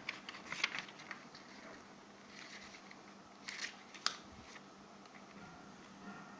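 Sheets of craft paper rustling and crinkling as hands handle them and lay one flat on a tabletop. There are two short spells of crackling, in the first second and again near four seconds, with a sharp tick just after four seconds.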